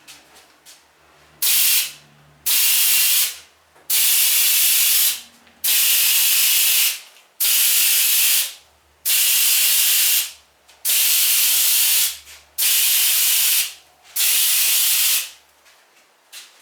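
Compressor-fed siphon-jar sprayer hissing in about ten short bursts of air as wood-ash slurry is sprayed onto pots, each burst lasting up to about a second and a half with brief gaps between them.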